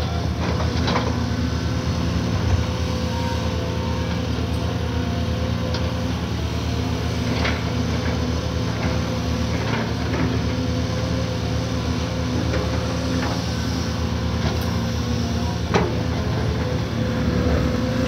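Caterpillar 340D hydraulic excavator's diesel engine running steadily under digging load, with a steady higher hum over it and a few short knocks as the bucket works.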